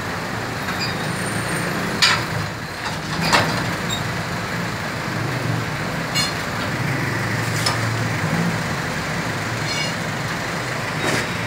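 Steady low machinery hum with several sharp metallic clanks, the loudest two about two and three seconds in. The clanks come from a red-hot steel rod being handled into a steel bending jig and levered over.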